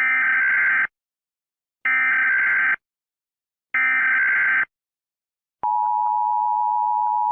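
Emergency Alert System header: three identical bursts of warbling data tones, each just under a second long. About five and a half seconds in, the steady two-tone EAS attention signal begins.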